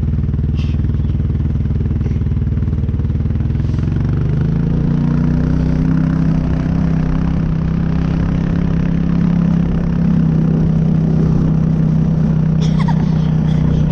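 ATV engine running steadily, its pitch rising about four seconds in and then holding at the higher speed.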